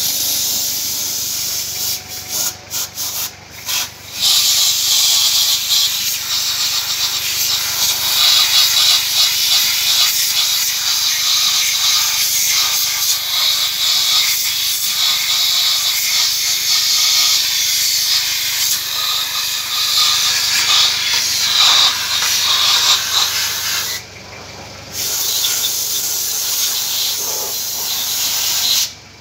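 Compressed-air siphon spray gun hissing steadily as it blasts cleaning solvent over an engine cylinder head. The trigger is flicked on and off several times about two to four seconds in. The hiss pauses for about a second some five seconds before the end, then cuts off at the very end.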